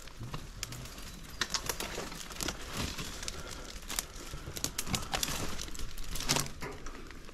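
A bird cooing in short low calls, once near the start and again about six seconds in, over frequent sharp clicks and rustling.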